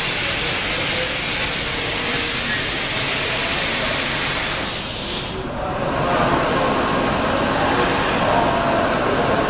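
Deckel Maho DMC 80 H hi-dyn horizontal machining center running, with a steady hiss of coolant spraying inside its enclosure. About five seconds in, the hiss dips briefly, and after that the sound is duller, with faint steady tones through it.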